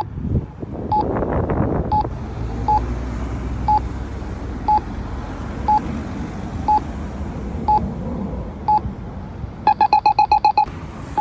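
Campbell accessible pedestrian signal pushbutton sounding its locator tone: a short, high beep about once a second. Near the end it switches to a quick run of about eight beeps in a second.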